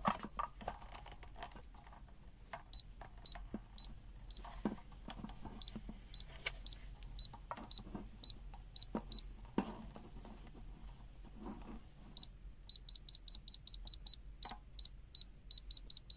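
UNI-T UT123D multimeter's buzzer chirping in NCV (non-contact voltage) mode: short high beeps at irregular intervals, coming faster over the last few seconds as the meter is held against a live cable. The NCV detection is weak and only triggers with the meter right on the cable. Handling clicks and knocks fall in between.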